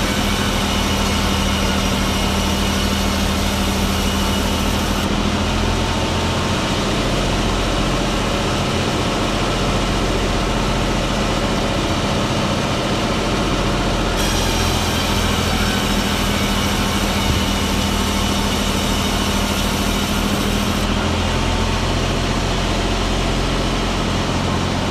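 A heavy engine-driven machine running steadily with a low, even hum, its tone shifting slightly a few times.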